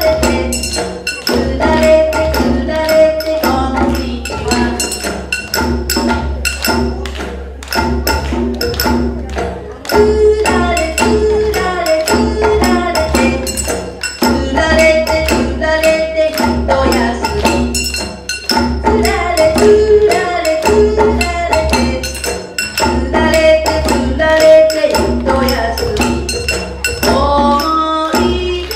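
Live performance of an ondo, a Japanese folk dance song: a melody over a steady percussion beat.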